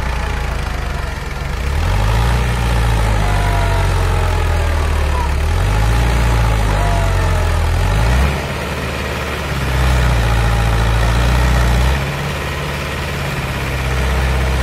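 Farm tractor engine working under load as it tows a pickup stuck in shallow water. The revs climb about two seconds in and again around six seconds, fall away about eight seconds in, pick up again about ten seconds in and drop once more near twelve seconds.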